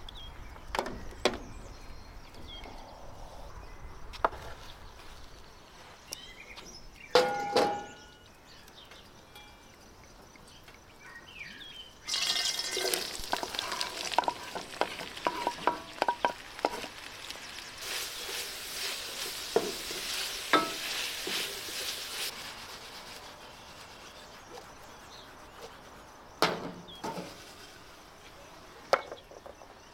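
Food sizzling in hot fat in a pan, starting suddenly about twelve seconds in and fading after about ten seconds, with utensil clicks and stirring over it. Before that, scattered knocks and a single ringing metal clank.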